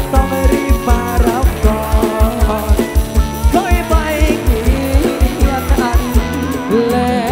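Live Thai rot hae sound-truck band music: a fast, steady kick-drum beat with bass and a wavering lead melody line.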